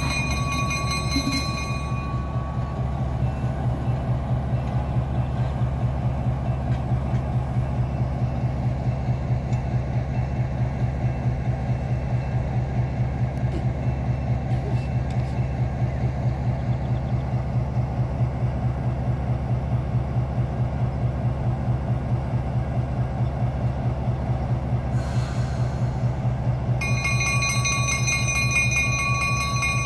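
EMD RS1325 diesel switcher running with a steady, rhythmic low throb as it moves slowly along the yard track. A locomotive bell rings for the first couple of seconds and again near the end.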